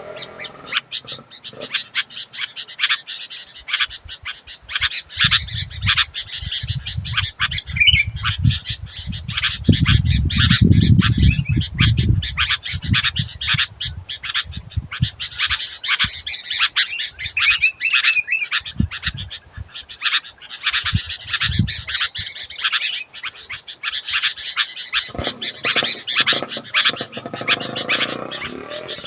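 Sooty-headed bulbuls calling loudly and busily, a dense run of short, sharp chattering notes. A low rumble sits under the calls from about five to twelve seconds in.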